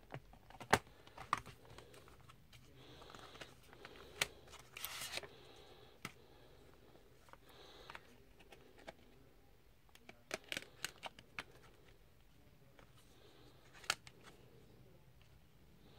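Plastic Blu-ray case being handled: scattered sharp clicks and snaps as the case is opened and its hinged disc tray is turned, with a short rustle about five seconds in and a cluster of clicks near the middle.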